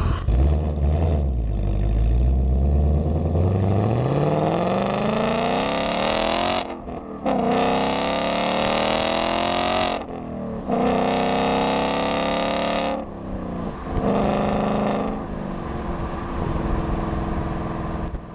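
2019 Ford Mustang GT's 5.0-litre V8 through its active exhaust with a Steeda X-pipe, accelerating hard. The pitch climbs and drops back briefly at each of three upshifts, then eases off near the end.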